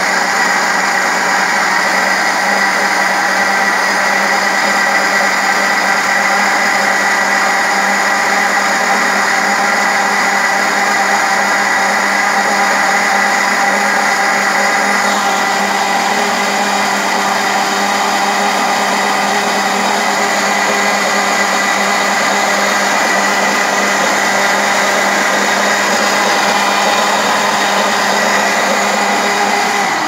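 Mallory Flash Black 450-watt blender running steadily, blending pineapple peels and cores with water into a thick juice; the motor holds one steady pitch throughout.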